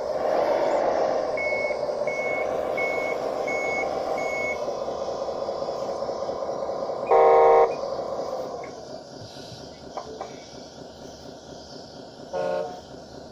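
1:12 scale model bulldozer running, with reversing beeps sounding five times in the first few seconds. A loud horn toot comes about seven seconds in and a shorter one near the end. The running sound drops away after about eight and a half seconds.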